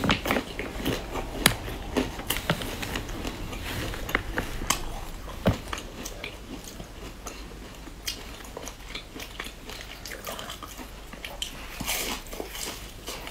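Close-up biting and chewing of crisp round biscuits sandwiching a dark grainy filling, with sharp crunches at irregular intervals, the loudest about a second and a half and five and a half seconds in.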